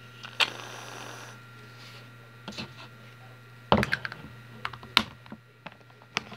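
Short hiss of an aerosol shaving cream can spraying into a plastic container about half a second in, then scattered clicks and knocks as the can and the plastic tub are handled on a table, with a cluster of knocks in the middle.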